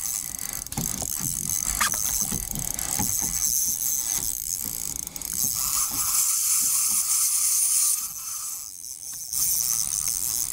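Fishing reel clicking and whirring against a hooked fish that is running line, which the angler takes for a shark. A steadier high whine comes from about five and a half to eight seconds in.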